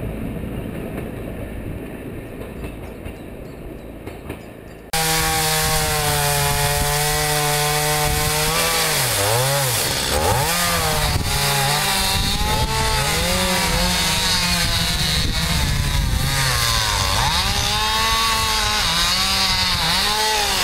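A diesel railcar's engine hum fades as it draws away. About five seconds in, a two-stroke chainsaw starts sounding loud and close, running at high revs, its pitch dipping and recovering again and again as it cuts through saplings and scrub.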